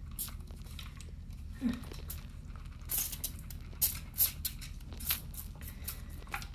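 Vetericyn Plus pump spray bottle squirted in about five short sprays, most of them between about three and five seconds in.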